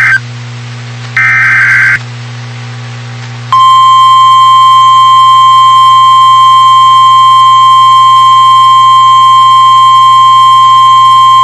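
NOAA Weather Radio alert: the tail of one SAME data-header burst, a raspy digital squawk, then a second one-second burst about a second later. About three and a half seconds in, the steady single-pitch 1050 Hz warning alarm tone begins and holds, with a low hum underneath.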